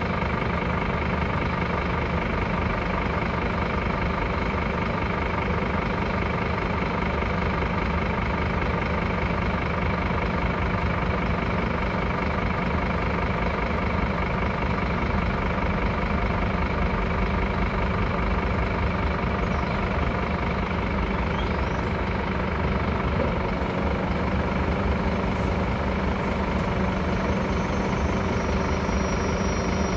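Scania P-series truck's diesel engine idling steadily, with a couple of faint ticks near the end.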